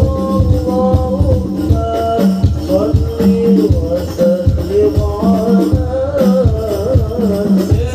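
Live music through a PA system: a voice singing a wavering melody over frame-drum (rebana) percussion with heavy, regular low drum strokes and a jingling tambourine-like rattle.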